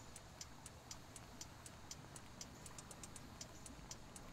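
Near silence with faint, short, high-pitched ticks repeating about three times a second.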